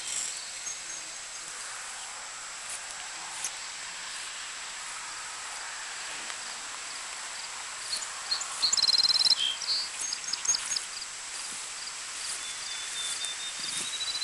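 Crickets and other insects trilling steadily in an open field, with a bird calling a quick run of repeated high notes a little past the middle.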